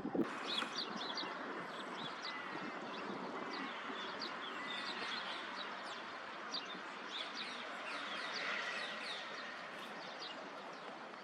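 Small birds chirping in many quick, high notes over a steady wash of outdoor background noise.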